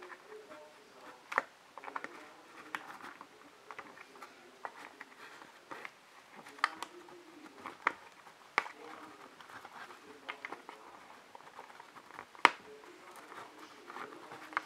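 Fingernails picking at and peeling small clear plastic strips on a cardboard box: irregular crinkles and sharp clicks, the loudest about twelve seconds in.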